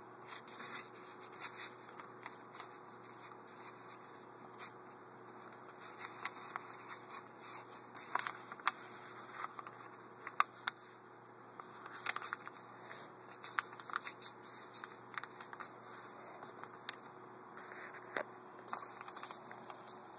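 A sheet of paper being folded by hand on a tabletop: irregular rustling and crackling, with fingers scraping along the creases to press them flat. A faint steady hum runs underneath.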